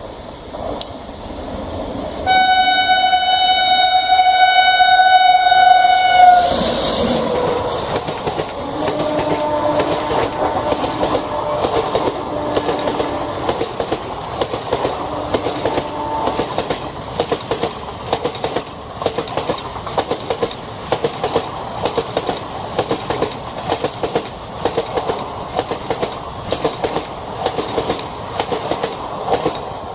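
Electric locomotive horn sounding one steady blast of about four seconds as the train nears. After that, the train passes, with the wheels of the ICF passenger coaches clattering over rail joints about twice a second.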